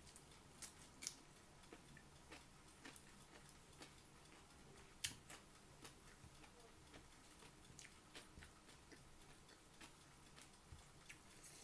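Quiet eating by hand: faint chewing and irregular light clicks from the mouth and from fingers picking food off a plate, with one sharper click about five seconds in.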